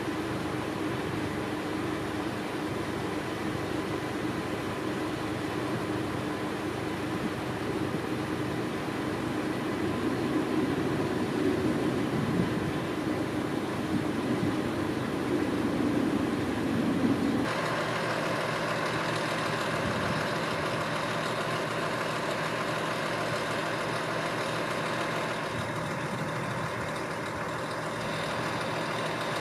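Vehicle engine idling steadily, a low hum that shifts abruptly partway through.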